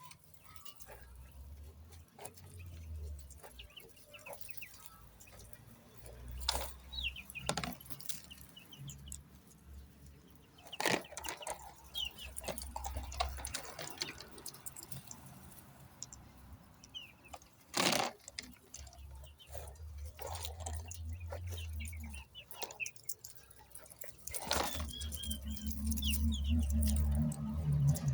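Quail chirping in short, high calls among scattered clicks and knocks of handling.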